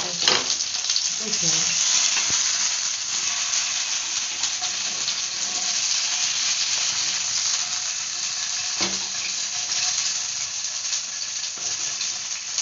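Flour-coated chicken pieces shallow-frying in hot oil in a frying pan, sizzling steadily, with a couple of knocks: one right at the start and one about nine seconds in.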